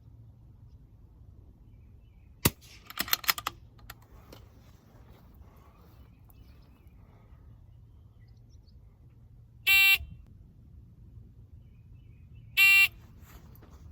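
Two loud electronic beeps from a phone timer, each about a third of a second long and about three seconds apart, marking the drill's par time. Earlier, about two and a half seconds in, there is one sharp click followed by a quick run of clicks.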